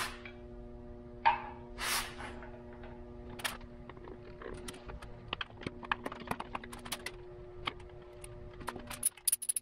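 Light clicks and taps of a plastic timing belt cover being handled and seated against a Subaru EJ25 engine, with a louder knock and a short scrape in the first two seconds. Soft background music with steady held notes plays underneath.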